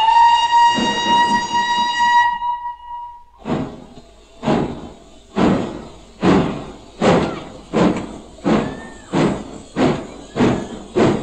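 Steam locomotive whistle giving one long steady blast, then exhaust chuffs that start about one a second and quicken to nearly two a second as the engine pulls away.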